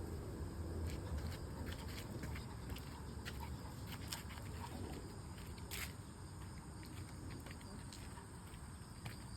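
A dog moving about, with scattered light clicks and small rustles, over a low steady rumble; there is one slightly longer, hissy sound about six seconds in.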